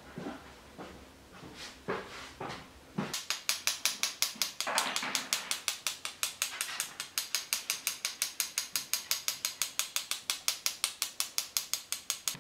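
A few scattered light knocks, then about three seconds in a rapid, very even mechanical clicking starts, about six clicks a second, like a ratchet.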